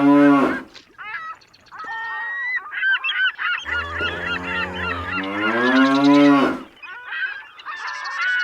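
Animal calls: a long, low moo-like call rising in pitch, followed by a flurry of many overlapping goose-like honks. The pair comes round twice, like a repeating loop.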